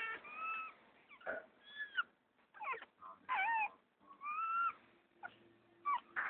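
Young puppies whimpering and squeaking: about eight short, high cries, each rising and falling in pitch, with short pauses between them.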